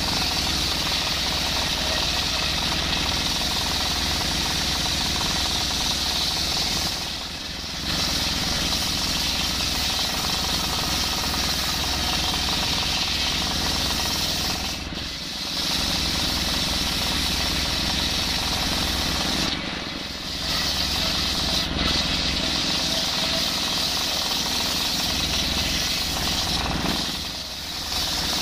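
Table circular-saw blade ripping a hard coconut-palm log into beams, with a high saw whine over the steady running of the stationary diesel engine that drives it. The noise drops briefly about four times between passes.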